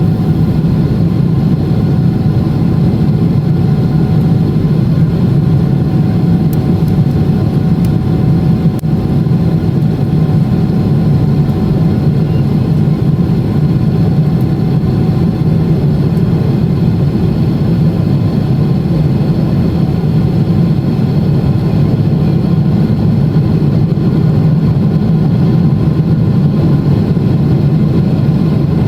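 Boeing 777-300ER's GE90-115B engines heard from inside the passenger cabin: a loud, steady jet-engine drone with faint steady whine tones above it, typical of climb thrust after takeoff.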